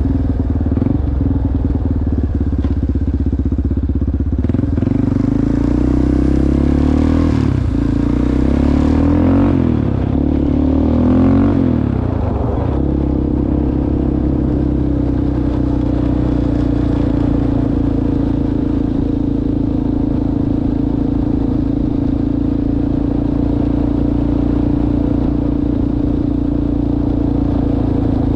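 ATV engine running under way on a trail. Its speed rises and falls for several seconds, then it settles into steady running from about halfway through.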